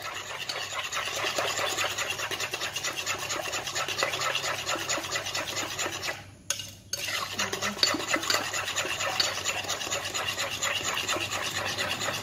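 Metal spoon beating cake batter of eggs, sugar and melted butter in a glass bowl: a fast, even run of clicks and scrapes against the glass. It stops briefly a little past halfway, then goes on.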